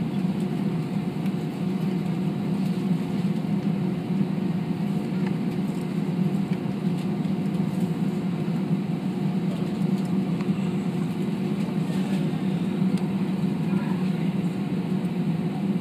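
Steady low cabin drone of an Airbus A320-232 taxiing on the ground, its IAE V2500 engines at idle thrust, heard inside the passenger cabin.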